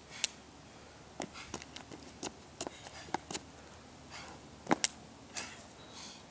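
Short, sharp breaths and sniffs of a man straining through slow push-ups taken to failure, among scattered small clicks and taps, the loudest a pair of clicks near the end.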